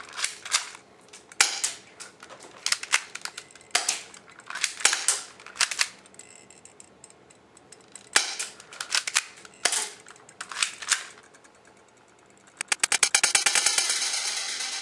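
Toy guns firing: sharp snaps, often several in quick succession, with a lull of a couple of seconds in the middle. About two seconds before the end a fast rattling run of clicks starts.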